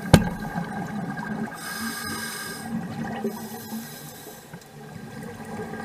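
Scuba divers breathing through regulators underwater, their exhaled air bubbling up in gurgling, hissing rushes. A single sharp click comes just after the start.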